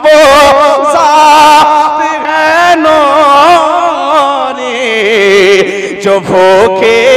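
A man singing a naat into a microphone. He holds long ornamented notes with a wavering vibrato, and the melody slides lower partway through.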